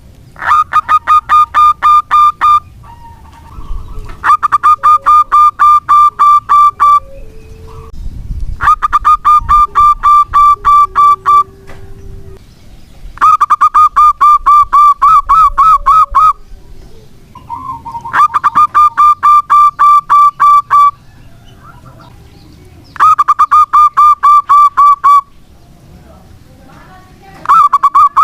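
Zebra dove (perkutut) singing: six loud phrases of rapid, evenly repeated pitched notes, each lasting two to three seconds with short pauses between, and another phrase beginning at the end. Fainter lower notes sound in some of the pauses.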